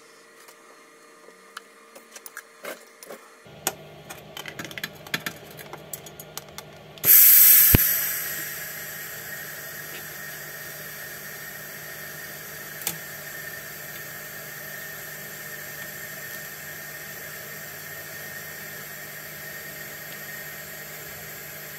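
Scattered small clicks and knocks, then about seven seconds in a TIG welding arc strikes with a loud burst. It settles into a steady hiss and buzz as a Lambda sensor boss is welded onto a stainless steel exhaust pipe.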